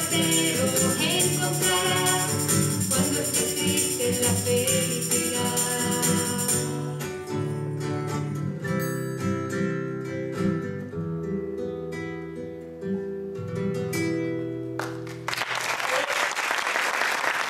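Acoustic song ending: singing over acoustic guitar, then plucked guitar notes over a held final chord that fades away. About fifteen seconds in, the audience breaks into applause.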